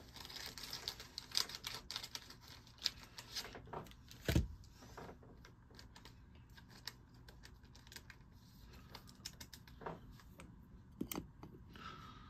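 Scattered light clicks and taps of trading cards and plastic card holders being handled and a card set on a clear acrylic display stand, with one louder knock about four seconds in.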